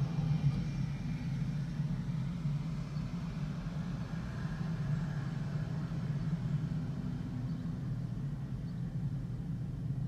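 Steady low hum of a car's engine and running gear, heard from inside the cabin as the car moves slowly.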